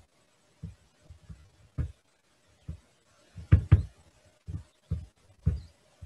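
Irregular soft knocks and bumps of handling noise close to a computer microphone, with a louder pair about three and a half seconds in, over a faint steady hum.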